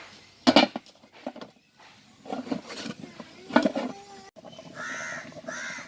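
Two loud clanks of a heavy weight being set on a cooking pot's lid, followed near the end by two short, arched, high-pitched calls over a steady tone.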